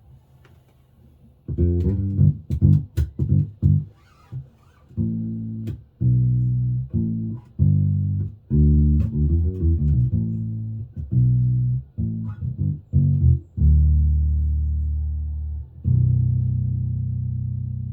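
Five-string electric bass (Hammer mini bass, ash body, maple neck, Hammer pickup and preamp) played through a small Warwick BC10 bass amp. After a short pause come quick plucked notes, then a phrase of separate notes, ending on two long notes left to ring and fade.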